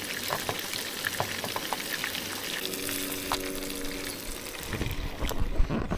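Crumbed redfin fillets and yabby tails sizzling gently in oil in a frying pan over a low gas flame, with small clicks of a metal fork against the pan. Near the end the sizzle drops away and a low rumble takes over.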